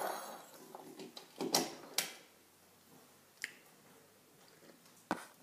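A few short clicks and knocks as a coffee mug is handled and drunk from, two close together about one and a half to two seconds in and softer ones later.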